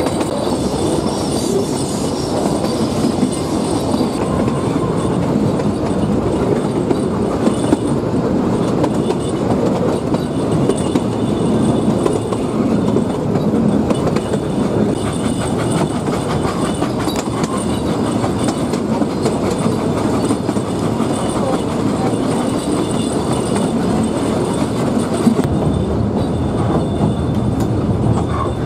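Puffing Billy narrow-gauge steam train running, heard from aboard an open carriage: a steady rattle and clatter of the carriages and wheels on the track, dotted with small clicks.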